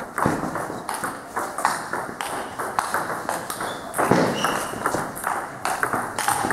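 Celluloid table tennis balls clicking off bats and tables in quick, irregular taps from rallies in progress, over a background of voices.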